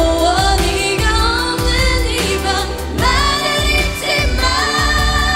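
Female lead vocalist singing a K-pop song live into a handheld microphone, holding long sliding notes over the song's instrumental with a steady beat.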